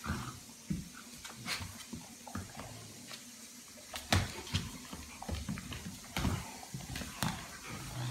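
Two dogs play-wrestling on a blanket over a hardwood floor: irregular claw clicks and scuffling with dull thumps, the sharpest knock about four seconds in.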